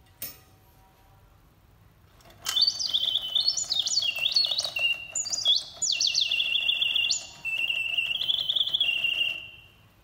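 Reuge two-bird singing automaton cage: a click at the start, then about two seconds later its bellows-driven whistle sings a warbling birdsong of quick rising and falling trills for about seven seconds, with two short breaks, before stopping.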